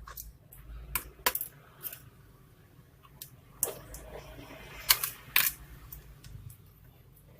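Asus GL552J laptop parts being handled during disassembly: a string of sharp clicks and light taps, with a short scrape near the middle and the loudest clicks about five seconds in.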